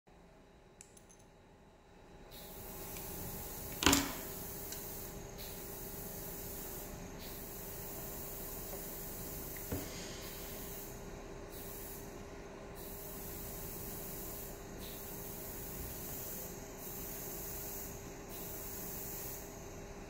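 Steady hiss with a faint low hum, setting in about two seconds in, its higher part dropping out briefly every second or two. A sharp click about four seconds in, the loudest sound, and a softer click near ten seconds.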